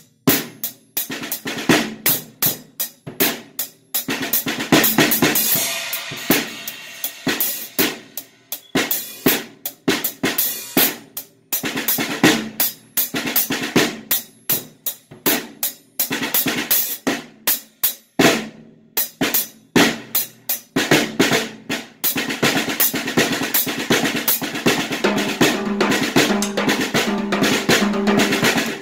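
Drum kit being played: strokes on a 14-inch snare drum fitted with a coated Ambassador batter head and damped by a beanbag resting on it, mixed with toms, bass drum and cymbals. For the last several seconds the strokes run together into a fast, continuous roll.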